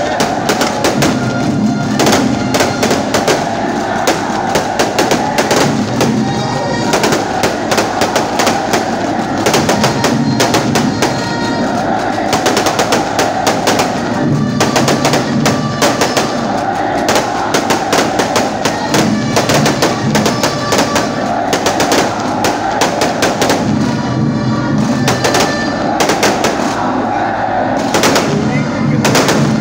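Aerial fireworks going off in a dense, continuous barrage of bangs and crackles from rockets and bursting shells, many reports a second.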